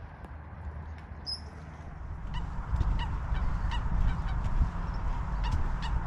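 Waterbirds on the lake giving a run of short, repeated calls, starting about two seconds in, over a low rumble of wind on the microphone.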